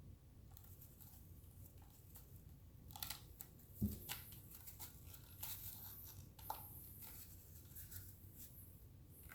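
Faint handling noises of vacuum accessories and their packaging: rustling, light clicks and knocks of plastic parts, with one low thump about four seconds in.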